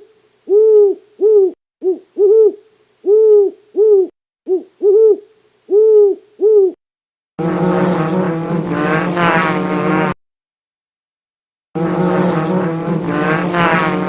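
An owl hooting in repeated paired hoots for about seven seconds. Then a large animal's roar, two calls of about three seconds each.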